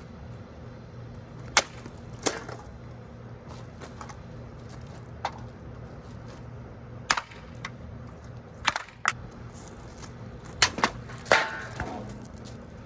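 A homemade axe with a blade cut from a metal-cutting saw blade striking targets in a series of sharp, irregular hits, about eight in all, bunched more closely in the last few seconds.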